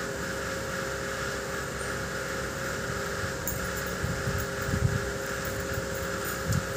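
A steady mechanical hum of a running household appliance, with two held tones and a hiss. A few soft low thumps come between about four and five seconds in and again near the end.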